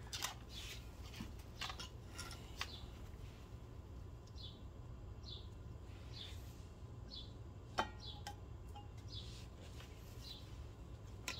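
Light metal clicks from snap-ring pliers and a U-joint snap ring being handled on a drive shaft, with one sharper metallic clink that rings briefly about eight seconds in. Short high falling chirps, like a bird, come about once a second through the middle, over a low steady hum.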